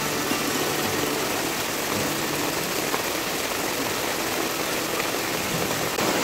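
Heavy rain pouring down onto a paved road, a steady even hiss, with a faint low drone under it in the first few seconds.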